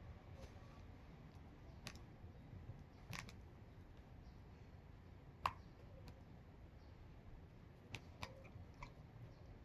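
A dog tearing at and chewing grass, heard as scattered short crisp clicks and snips, the loudest a little past the middle.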